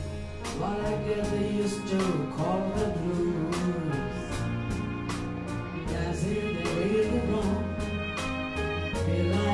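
Live band music with a string section: a gliding melody line over a bass line, piano and regular drum and cymbal strokes.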